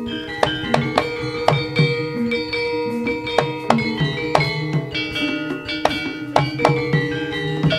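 Javanese jaranan gamelan ensemble playing a steady beat: repeated sharp drum and percussion strikes, several a second, over ringing pitched metallophone notes and a held tone.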